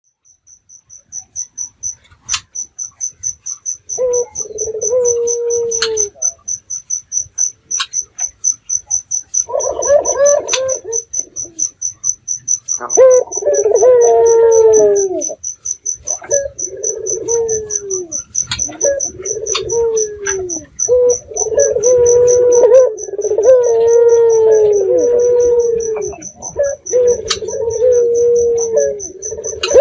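A ringneck dove (puter) cooing: low, repeated phrases with falling notes, sparse at first and then coming every second or two. A cricket chirps rapidly and steadily behind it.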